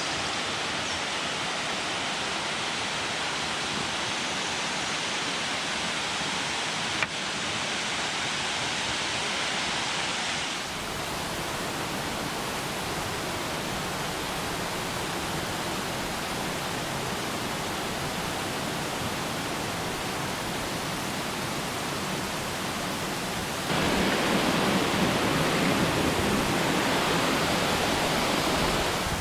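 Cascading waterfall rushing: a steady, even sound of falling water. It changes character about a third of the way through and grows louder for the last five seconds or so, with one brief click about seven seconds in.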